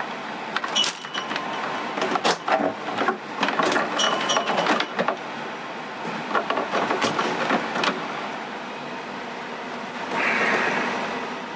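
Plastic tubing and a plastic water maker control panel being handled as tubes are pushed into their fittings: irregular clicks, taps and rustles, with a short burst of rustling near the end, over a steady background hiss.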